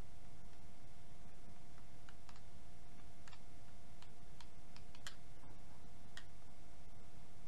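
Light, irregular clicks of a hand cross-head screwdriver turning a long screw into the metal housing of an outboard's power trim and tilt electric motor, more frequent from about four seconds in. A faint steady hum runs underneath.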